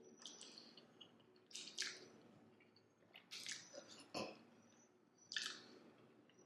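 Faint wet chewing and mouth smacking from eating pasta in a creamy sauce, with a handful of short, sharp smacks spread through.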